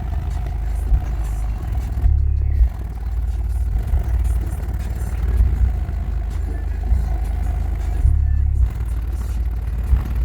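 Bass Fx subwoofer in a ported box playing bass-only music, deep notes that swell and drop, through 8-inch aero ports newly flared to cut port noise. A little rush of air from the ports remains, now reduced by the flares.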